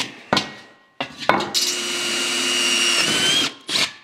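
A couple of short clicks, then a power drill runs with a steady whine for about two seconds and winds down, with a brief blip near the end. It is drilling with a bit that is unbelievably blunt.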